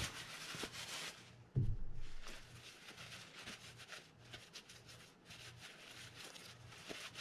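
Paper towel rubbing and rustling as it wipes the inside of a Fin-Nor Offshore 7500 reel's metal spool, with a dull knock about a second and a half in.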